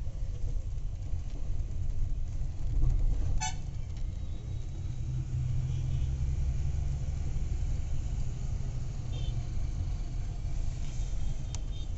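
Steady low rumble of a moving vehicle heard from inside, with street traffic around it and a brief car-horn toot about three and a half seconds in.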